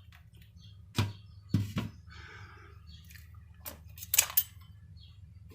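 Kitchen items being handled: a few sharp knocks and clatters, about a second in, again at one and a half to two seconds, and a louder cluster around four seconds in, over a faint low hum.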